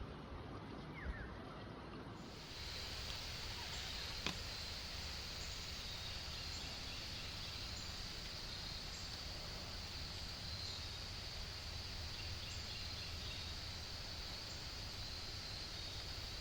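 Outdoor nature ambience: at first a low rumbling wash, then about two seconds in an abrupt change to a steady high-pitched hum with faint regular ticks.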